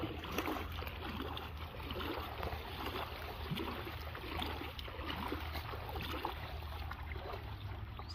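Water sloshing and splashing irregularly, over a steady low rumble.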